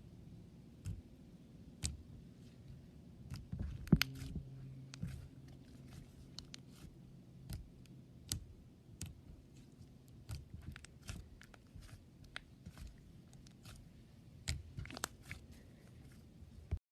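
Slime being pressed and squeezed by hand, giving faint irregular clicks and small pops, with a louder pop about four seconds in.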